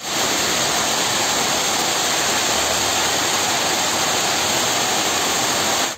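Heavy hail and rain pelting down on a street and parked cars: a dense, steady hiss that cuts off abruptly at the end.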